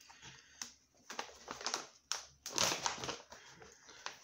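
Plastic packaging pouch crinkling and rustling as it is handled, in short irregular bursts with a few sharp clicks; the loudest stretch comes about two and a half seconds in.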